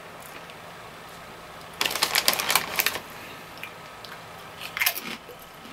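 Crinkly chip bag rustling and crackling for about a second as a hand rummages inside for a chip, then a shorter crackle near the end.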